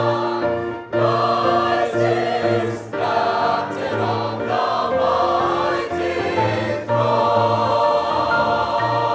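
Choir singing a hymn, several voice parts holding chords over a bass line, the chords changing about once a second.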